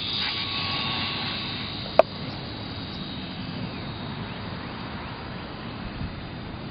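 Electric motor and propeller of a small RC plane (a GWS Slowstick-type model) running at full throttle for takeoff. It makes a high-pitched whine that fades as the plane climbs away. One sharp click comes about two seconds in.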